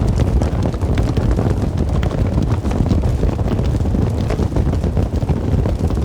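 Wind buffeting the microphone: a loud, steady low rumble with scattered small clicks.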